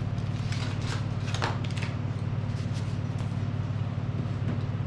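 A steady low hum throughout, with a flurry of rustles and plastic clicks in the first two seconds and a few more about three seconds in, from the box, its packaging and the nail gun being handled while it is unboxed.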